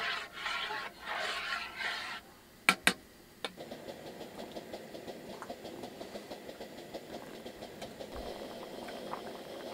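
A pot of tteokbokki simmering on a camp stove: a steady low bubbling with many small pops. Near the start there are two seconds of rough scraping as it is stirred, then two sharp clicks.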